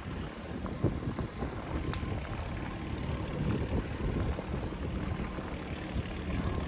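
City street ambience: a low, uneven rumble of traffic, with a few faint short knocks.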